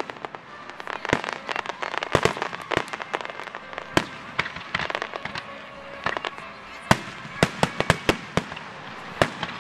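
Aerial fireworks shells bursting in a rapid, irregular run of sharp bangs, several to a second at times, over a steady background hiss.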